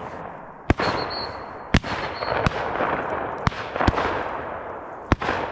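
Several shotguns firing at a pheasant drive: about six sharp shots at irregular intervals, each trailing off in a rolling echo.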